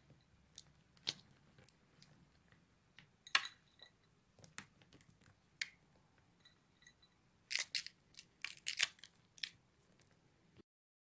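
Scattered sharp clicks and taps of hands and utensils at work in a kitchen, with a quick run of them near the end; the sound then cuts off to silence.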